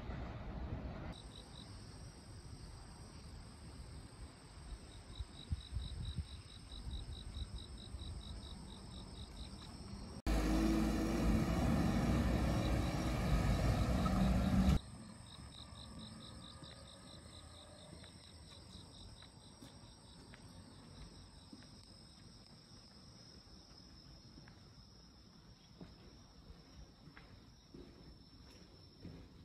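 Insects calling in a fast pulsing rhythm over quiet outdoor ambience, with a louder rushing noise for about four seconds in the middle. Faint footsteps come near the end.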